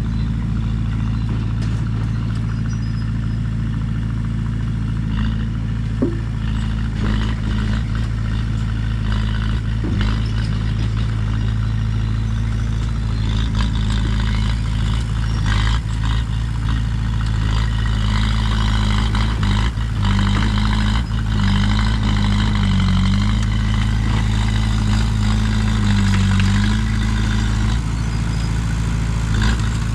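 Komatsu bulldozer's diesel engine running steadily, with scattered clanks and knocks. Its note dips briefly a few times in the second half, as if pulling under load.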